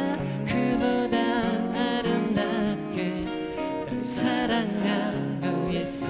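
Several acoustic guitars strummed together in a steady rhythm, with male voices singing over them: a live acoustic folk-pop performance.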